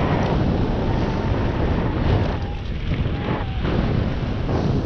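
Wind noise on the microphone of a camera carried on a moving bicycle, a steady loud buffeting with most of its weight low down.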